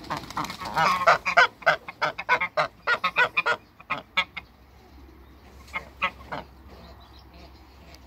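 Domestic geese honking in a rapid, loud run of calls for the first four seconds or so, then a few single honks about six seconds in.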